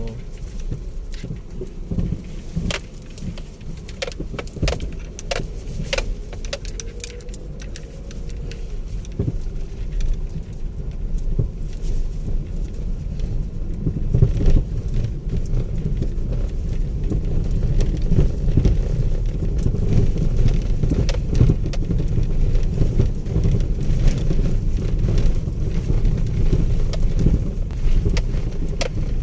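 A car driving on a rough road, heard from inside the cabin. There is a steady low rumble of engine and tyres with frequent rattles and knocks, and it grows louder from about eight seconds in.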